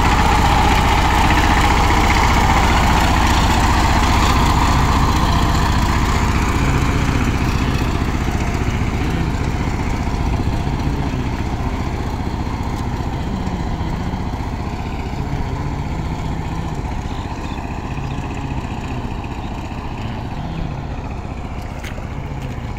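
Two-wheel power tiller's single-cylinder diesel engine running steadily as it churns through a flooded paddy field. It grows gradually fainter as the tiller drives away.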